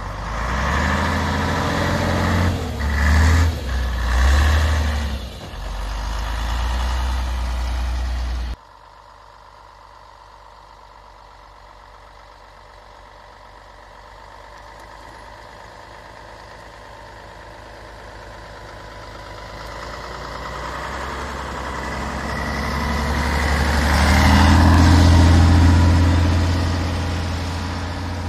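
Scania SBA111 (TGB 30) military off-road truck's six-cylinder turbodiesel working through snow, its note rising and dipping several times in the first eight seconds. Then the sound drops away suddenly and the truck is heard far off, growing steadily louder as it comes closer, loudest about 25 seconds in, then easing slightly as it moves away.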